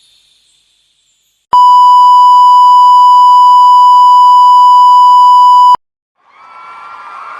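A single long, steady electronic beep, the flat high-pitched censor-bleep kind, starts abruptly, holds for about four seconds and cuts off suddenly. Near the end, a rising rush of noise begins.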